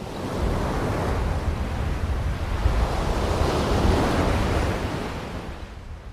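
Ocean surf washing in over shallow water, with wind buffeting the microphone in a low rumble. The wash builds to a peak a few seconds in and eases near the end.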